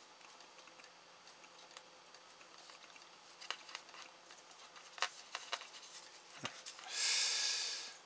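Faint scattered clicks from a small plastic RC servo and its wires being handled while they are unsoldered, then near the end a hiss lasting about a second.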